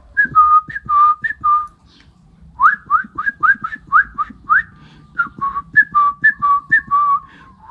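A man imitating a forest bird's call by whistling through his cupped hand: a string of short whistled notes, first falling slurs, then after a brief pause a quick run of rising notes about four a second, then falling slurs again.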